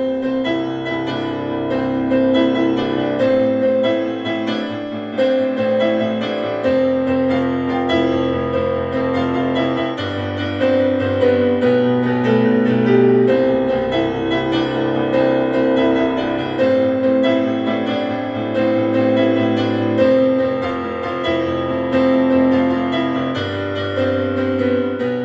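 Outro music played on piano or electric piano: sustained chords over a bass line that changes every few seconds, with notes repeating in a steady rhythm.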